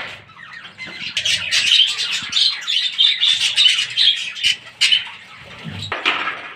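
Budgerigars chattering: a dense run of rapid, high chirps and warbles that thins out near the end.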